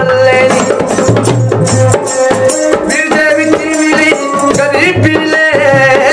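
Indian folk song: a man singing over a bowed fiddle melody, with a steady drumbeat and jingling bells.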